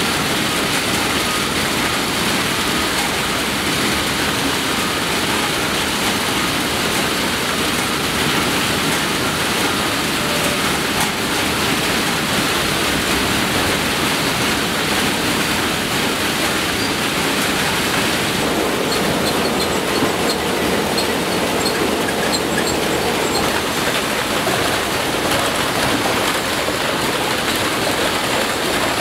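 Steady din of a pepper packing line: conveyor belts, chutes and a sorting machine running with peppers rolling along them. About two-thirds of the way in a faint hum and light high ticking join the noise.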